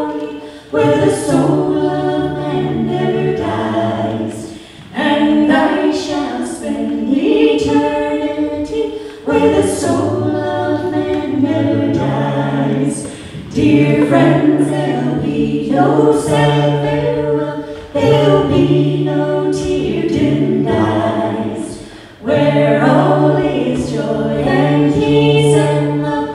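Three singers, two women and a man, singing a gospel song in close harmony through microphones, apparently unaccompanied, with steady low held notes under the upper voices. Phrases break with short pauses every three to four seconds.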